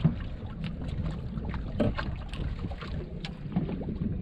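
Wind rumbling on the microphone on a small fishing boat on open water, with scattered light clicks and knocks, one sharp knock right at the start and another about two seconds in.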